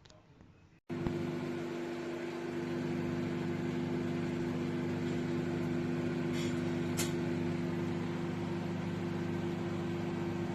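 COMFEE' 800 W microwave oven running: a steady mains hum with fan noise, starting about a second in, with two brief clicks a little past halfway.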